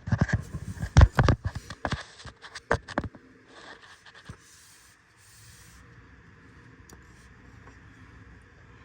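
A quick run of sharp knocks and clatter from tools and engine parts being handled during an engine teardown, loudest about a second in and dying away after about three seconds. A faint steady hum remains.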